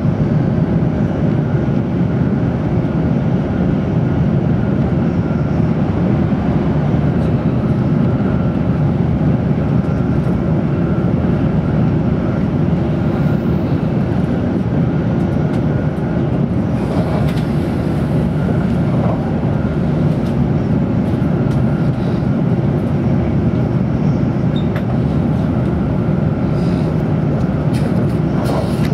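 Tokaido Shinkansen N700-series train running at speed, heard from inside a passenger car: a steady low rumble of wheels and running gear, with a few faint clicks about halfway through and near the end.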